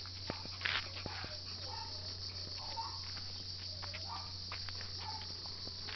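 Steady high insect chirring, with scattered light clicks and scuffs of steps on pavement and a few faint short whines.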